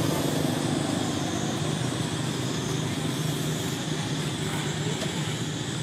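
Steady hum of a motor vehicle's engine in the background, slowly getting quieter.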